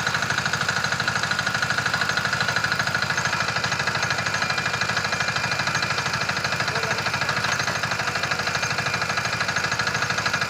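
Small engine running steadily at an even speed, with a rapid regular pulse, powering a rotary well-drilling setup.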